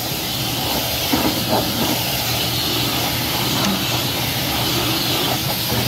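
Hot-water pressure washer jet spraying into a haul truck's engine bay: a steady hiss of water and steam with a low hum running underneath.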